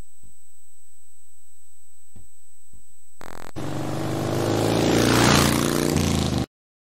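Outro transition sound effect: after a few faint soft thumps, a sudden burst about three seconds in opens a swelling whoosh with a low droning tone under it. It builds for about three seconds and then cuts off abruptly.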